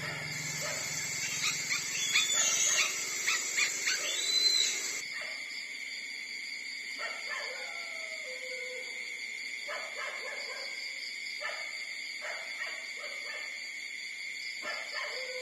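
Young nursing puppies whimpering and squeaking. A busy run of short, high squeaks fills the first five seconds, then sparser, lower whines follow, over a steady high tone.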